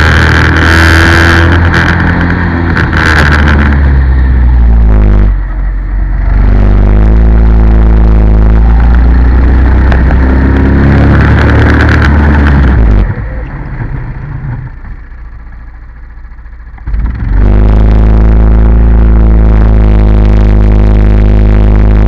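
Racing kart engine heard from on board, running hard at full throttle with its pitch rising as it accelerates. The revs fall away briefly about five seconds in, and about thirteen seconds in the throttle closes for around four seconds, the engine much quieter and lower, before it pulls hard again.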